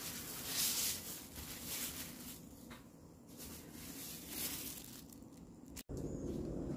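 Disposable plastic gloves crinkling and rustling as hands handle a rolled kimbap. A little before the end the sound cuts off abruptly and gives way to a steady low background noise.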